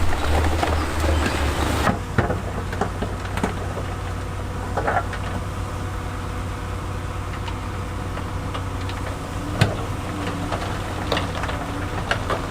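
Heavy diesel earthmoving machinery running steadily, with a few sharp knocks of stone. A loud rushing clatter cuts off abruptly about two seconds in.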